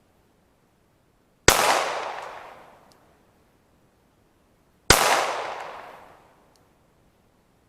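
Two pistol shots from a Glock 19 firing 9mm 115-grain full metal jacket rounds, about three and a half seconds apart, each a sharp crack followed by a long fading echo.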